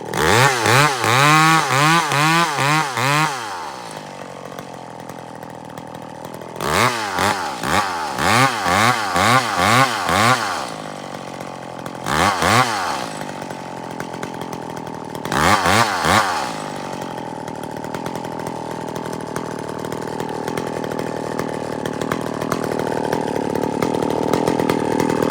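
Chainsaw engine revving in quick repeated bursts, several rises and falls a second, in four spells in the first half. Between spells and through the second half it idles steadily.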